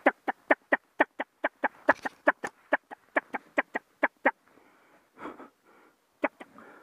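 A fast, even run of about twenty short, loud, quack-like notes, about four or five a second, that stops about four seconds in, with a single note more near the end.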